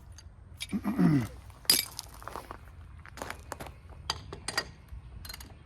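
Sharp, irregular metallic clinks and clicks of a 3/4-inch-drive Craftsman ratchet and socket being handled on a wheel's lug nut, the loudest clink a little under two seconds in.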